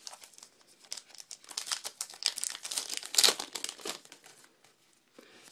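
Trading card pack wrapper crinkling as it is torn open and pulled off the cards, in a dense run of crackles that peaks in the middle and dies away near the end.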